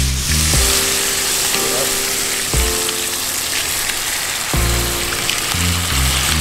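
Crappie fillets frying in melted butter in a pan, a steady sizzle, with background music carrying low sustained notes underneath.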